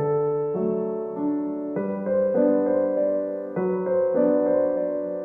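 Background music: a piano, likely electric, playing slow sustained chords that change about once a second.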